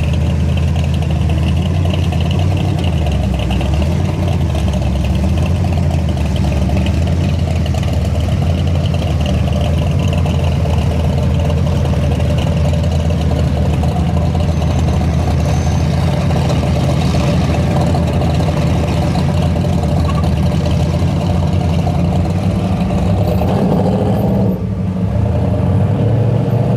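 Chevelle SS's V8 running at a low, steady idle as the car creeps along in slow traffic, a deep rumble.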